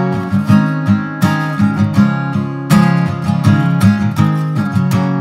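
Acoustic guitar strummed in a rhythmic pattern, chords ringing on between the strokes.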